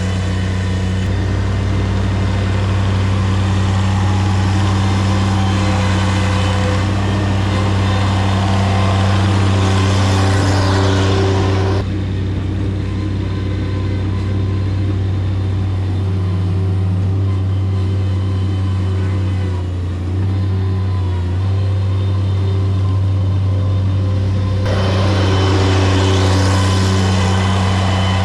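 Engine of earth-moving equipment running steadily with a deep, even hum. Its brighter upper clatter drops away about twelve seconds in and comes back near the end.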